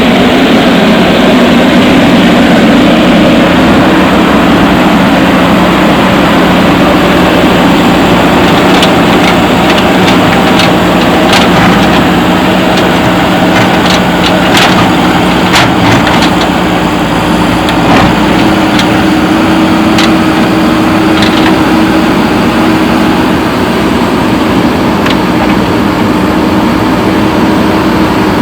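JCB backhoe loader's diesel engine running steadily under load. From about a third of the way in come scattered sharp cracks and knocks as a concrete slab is broken up.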